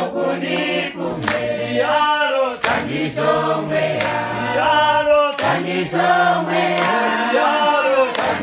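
Church congregation singing a hymn together without instruments, with sharp hand claps about once a second.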